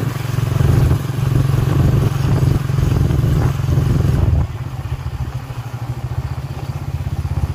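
Motorbike engine running with some clatter as it is ridden; about four and a half seconds in it eases off to a quieter, steadier note.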